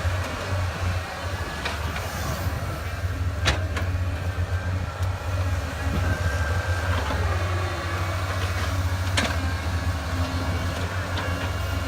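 Heavy diesel engine of earthmoving machinery running steadily with a deep drone, with two sharp clicks or knocks, one about three and a half seconds in and one near nine seconds.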